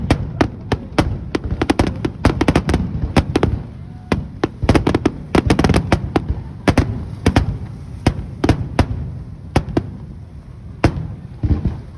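Aerial fireworks shells bursting: dozens of sharp bangs in quick, irregular volleys over a steady low rumble.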